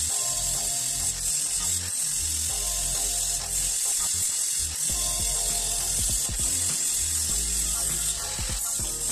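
Angle grinder with an abrasive disc grinding the joints of a steel profile-tube door frame: a steady high hiss of disc on metal that eases off briefly a few times as the tool is lifted and moved. Background music plays underneath.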